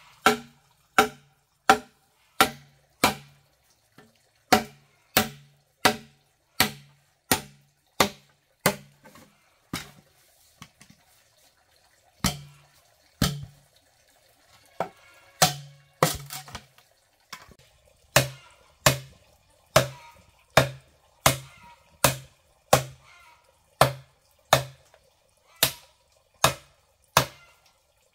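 Machete chopping into a green bamboo pole: a steady run of sharp knocks, about one and a half a second, each with a short low ring. The strokes pause for a couple of seconds near the middle and come more unevenly for a few seconds after.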